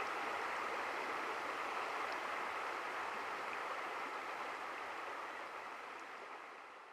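Steady rushing sound of flowing water, fading out near the end.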